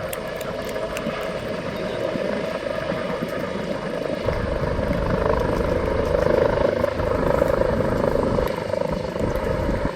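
Helicopter rotor and engine drone, growing louder about four seconds in as it comes closer, loudest a couple of seconds later.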